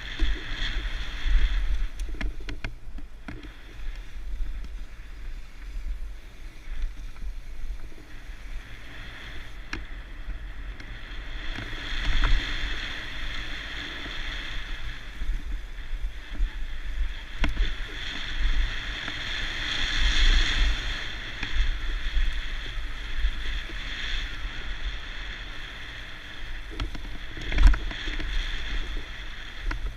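Mountain bike riding downhill on a bike-park trail, heard from a camera on the bike or rider: wind buffeting the microphone over the steady rush of tyres on dirt, with scattered rattles and knocks from bumps, the hardest a little before the end.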